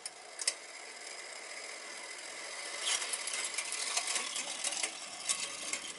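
Motorized vent damper on a gas boiler's flue cycling during the start-up sequence, before the burner fires: its geared actuator motor turns the damper blade. There are a couple of clicks at the start, then from about halfway a busy rattle of small mechanical ticks.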